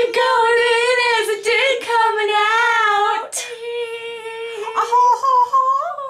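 A girl singing long, high held notes with a wobbling pitch. The voice breaks off briefly about three seconds in, carries on, and slides up to a higher note near the end.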